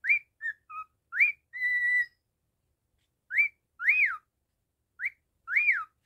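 Pet cockatiel whistling a tune: a string of clear whistled notes with quick upward sweeps, one held level note, and arched rise-and-fall notes like a wolf whistle, separated by short silences.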